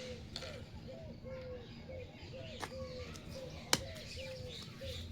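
A bird calling over and over in the background, a short curved note followed by a longer level one, about once a second. Two sharp clicks of hard plastic toy parts come over it, the second, near the end, the loudest.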